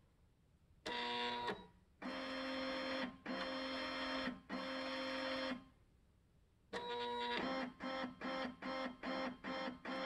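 Epson Stylus Color 640 inkjet printer running, its motors whining with steady tones as the mechanism moves. A short burst comes about a second in, then three runs of about a second each, a pause, another short burst, and quick short moves about three a second near the end.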